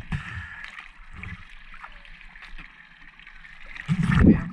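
Seawater sloshing and gurgling around a camera riding at the surface, with brief surges of water against it and a louder splash near the end.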